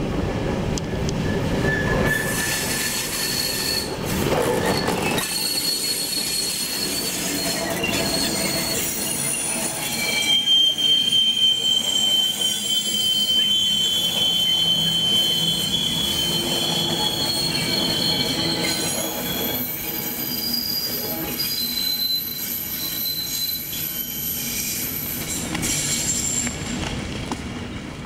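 A train of five vintage coaches hauled by a class T478.1 diesel locomotive rolls past close by. Through much of the middle its wheels squeal on the rails in several high, steady tones, and the sound fades near the end as the train moves away.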